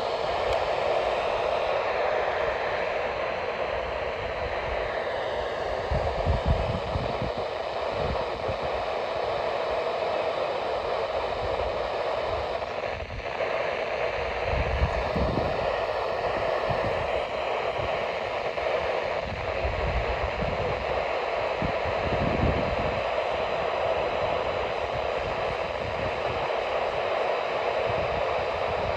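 Steady hiss of radio static from a weather radio receiver picking up a weak NOAA Weather Radio signal, with irregular low rumbles underneath.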